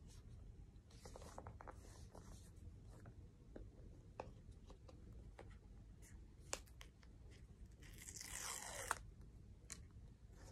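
Faint packaging handling: scattered soft clicks and rustles, a sharper tick about six and a half seconds in, then a tearing of the box packaging lasting about a second, about eight seconds in, ending in a snap.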